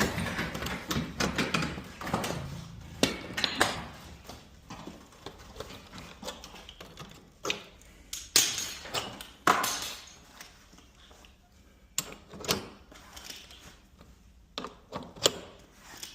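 Scattered metal clicks and knocks with a few short scraping sounds: old worn garage door rollers being pried out of the hinges and track with the claw of a hammer.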